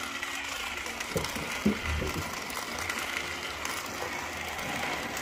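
Battery-powered toy car running along a flexible segmented plastic track: its small motor and wheels make a steady whirring rattle, with a few light knocks between about one and two seconds in.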